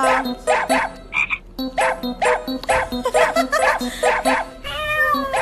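Background music with a steady bouncy beat of repeated short notes, about two a second. Near the end, a short wavering whine rises and falls over it.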